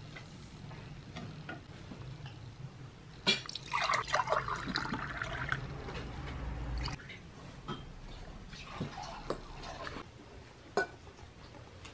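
Red drink poured from a large glass jar into cut-glass tumblers, a gurgling pour of about three seconds that starts just after a sharp click. Afterwards, scattered light clinks of cutlery and dishes.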